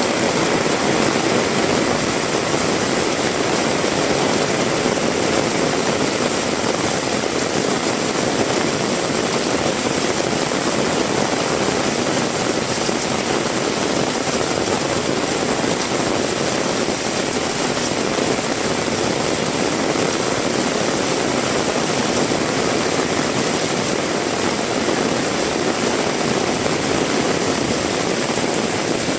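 Heavy rain falling steadily, a dense, even rush of noise that does not let up.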